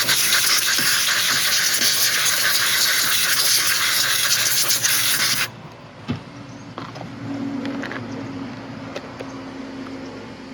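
Compressed-air blowgun giving a loud, steady hiss for about five and a half seconds, then cutting off suddenly: blowing the built-up crud out of a chainsaw's dirty air filter. Faint handling knocks and a low hum follow.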